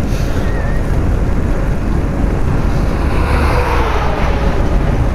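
Wind rushing over the microphone together with steady tyre and road rumble from a velomobile riding on asphalt, with a faint tone sliding downward about three seconds in.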